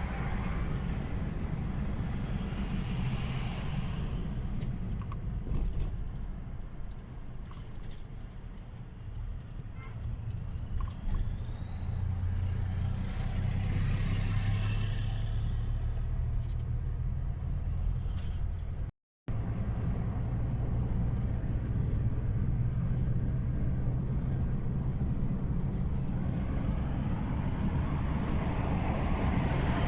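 Steady low rumble of a motor vehicle on the move, with a thin rising whistle from about ten to fifteen seconds in. The sound drops out briefly near nineteen seconds.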